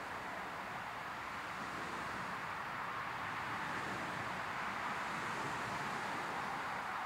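Jet airliner engines at high thrust heard from beside the runway: a steady rushing roar that swells slightly past the middle.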